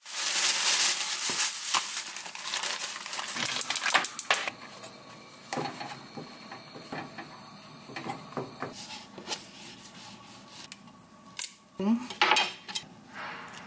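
Kitchen cooking sounds: a loud hiss for the first few seconds, then a frying pan and utensils clinking and scraping as a whole-wheat tortilla is toasted on a gas stove. Near the end there are knife knocks on a wooden cutting board as an avocado is cut.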